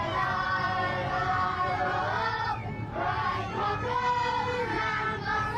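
A group of voices singing together, holding long notes.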